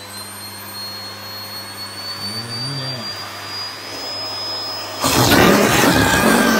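Canister vacuum cleaner running with a steady high motor whine that creeps slightly upward in pitch. About five seconds in the sound turns much louder and rougher, with the nozzle held against cloth.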